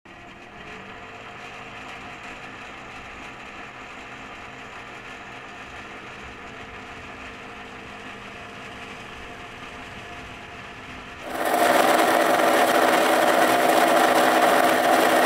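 Tractor-driven slurry mixer running steadily with a humming machine note as its arm is lowered into the slurry tank. About eleven seconds in, the sound turns abruptly much louder and fuller and stays that way.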